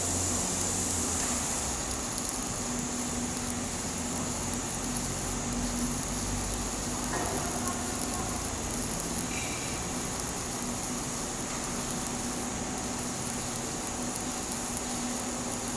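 Stick-welding arc burning an E7018 rod on a capping pass: a steady crackling hiss over a constant low hum.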